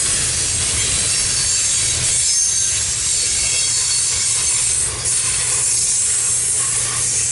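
Freight train cars rolling past at close range: a steady, loud wheel-on-rail rush with a high hiss and a low rumble, with a brief dip about five seconds in.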